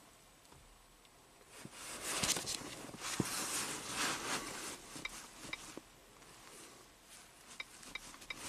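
Faint rustling with a few light taps and clicks as gloved fingers type on a scan tool's touchscreen, a soft hiss swelling for a few seconds in the middle.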